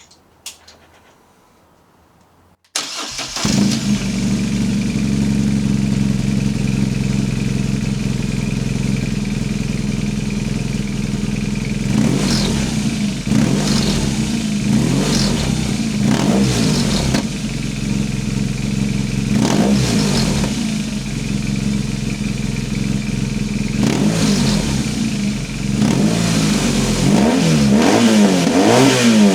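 BMW R1200 GS Adventure boxer twin, fitted with a GRmoto slip-on exhaust with the baffle removed, starting up about three seconds in and then idling. It is given a series of throttle blips that rise and fall, coming closer together near the end.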